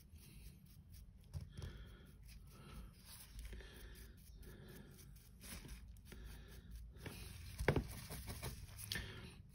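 Faint scratching of a stiff dry brush being worked over a painted miniature, with light handling noises, and a sharp click near the end.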